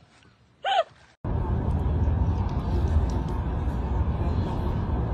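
A brief pitched cry about a second in, then a sudden switch to steady low outdoor background rumble.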